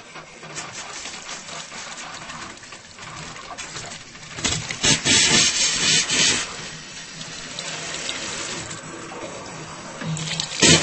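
Water tap running with poor, uneven flow, the stream sputtering and surging louder for about two seconds midway and again briefly near the end.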